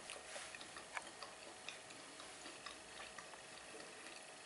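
Quiet room tone with faint, scattered light ticks, roughly two a second and not quite even.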